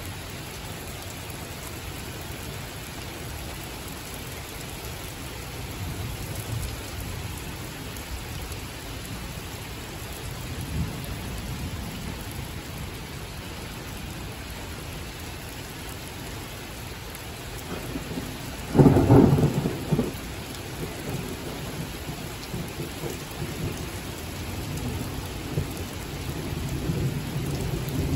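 Heavy rain falling steadily during a thunderstorm, with low rolls of thunder and one loud clap of thunder about two-thirds of the way in.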